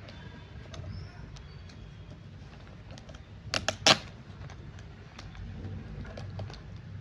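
Scattered light clicks and rustles of hands handling a package, with a quick run of three or four sharp snaps about halfway through, over a low steady hum.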